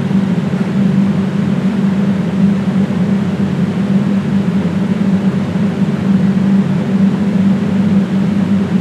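Loud, steady machine-like drone: a low hum with a rough hiss over it, unchanging throughout.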